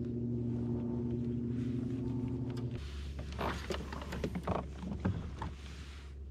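A steady low hum with several pitches cuts off suddenly about three seconds in, followed by a run of clicks, knocks and rattles, then a quieter, wind-like hiss.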